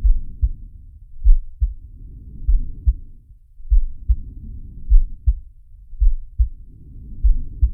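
Heartbeat and breathing sound effect: a slow heartbeat of low double thumps (lub-dub) about every 1.2 seconds, over muffled breathing that swells and fades in long breaths.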